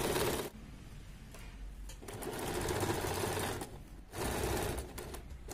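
Electric sewing machine stitching a seam in short runs, stopping and starting: one run ends about half a second in, a second runs for about a second and a half, and a third, shorter run follows near the end.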